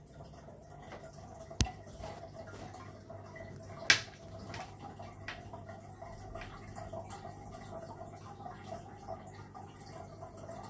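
Aquarium water trickling and dripping over a steady low hum, with two sharper clicks about one and a half and four seconds in.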